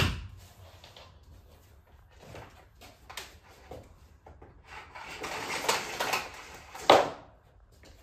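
Handling sounds from a Bosch BGS21X320 bagless canister vacuum that is switched off. There is a loud knock at the start, light steps, then a noisy rush of about two seconds that ends in a loud clack, fitting the power cord rewinding into the body after being unplugged.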